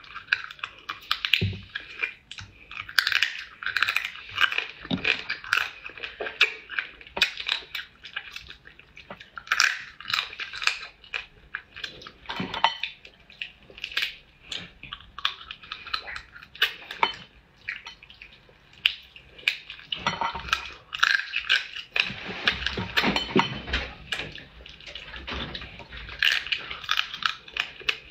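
Close-up sounds of eating cooked crab by hand: shell cracking and being picked apart, with sucking and smacking at the meat, as an irregular run of crackles and clicks.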